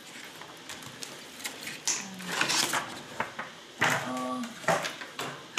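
Crinkling and rustling of a thin polythene wrapper being pulled off a leather planner, with quick crackles and handling taps, denser about two seconds in and again near four seconds.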